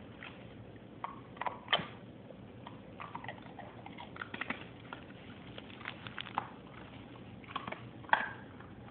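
A dog biting and tearing at crumpled gift wrapping paper. Irregular crinkles and rips, with the sharpest rips a little under two seconds in and again near the end.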